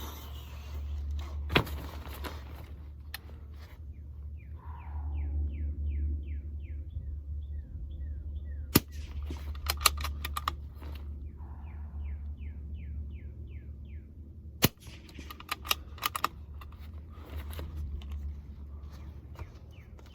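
Bergara B14R .22 LR bolt-action rifle firing several single shots, several seconds apart, each followed by a short run of quick clicks. Between the shots come runs of quick high chirps, over a steady low rumble.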